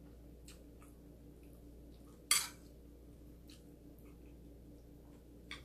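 Metal spoon scraping against a ceramic plate once, briefly, about two seconds in, with faint soft clicks of eating utensils between.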